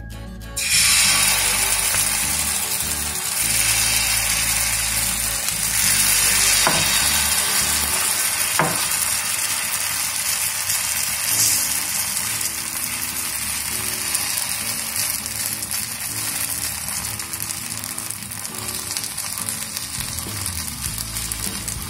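Suji (semolina) cheela batter sizzling on a hot oiled tawa, starting about half a second in as the batter hits the griddle, while a ladle spreads it out in circles.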